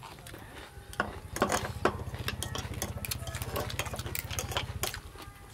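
A small engine running with a low, fast, steady rhythm from about a second in until shortly before the end, stopping abruptly. Sharp clicks and taps of chopsticks and spoons on plates sound over it, the loudest early on.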